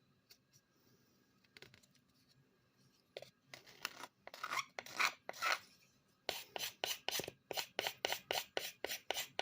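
A steel pocketknife blade drawn in quick scraping strokes across a sharpening surface: a few uneven strokes, then a fast even run of about four strokes a second.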